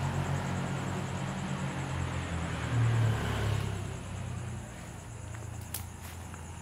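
A low motor drone, peaking about three seconds in and then fading away, like an engine passing and moving off; insects chirr steadily in the background.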